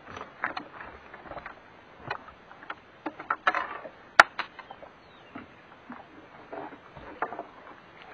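Irregular light splashes and knocks of water and gear against a fishing boat's hull, with one sharp click about four seconds in.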